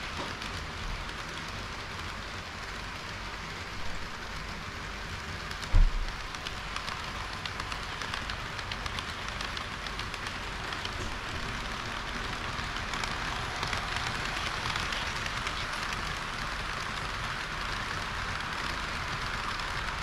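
HO-gauge model trains running on the layout's track close to the microphone: a steady rushing, rattling noise of wheels and motors. A single low thump about six seconds in is the loudest moment.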